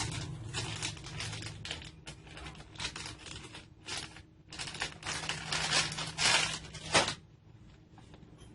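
Irregular clicks, rattles and scrapes of metal parts being handled as the chainsaw bar-and-chain attachment is taken off an angle grinder, stopping about seven seconds in.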